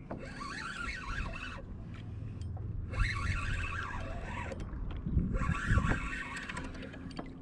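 Fishing reel being cranked in three short bursts, each lasting about a second with a pause between, as a fish is wound up toward the kayak. A few low knocks come around the middle.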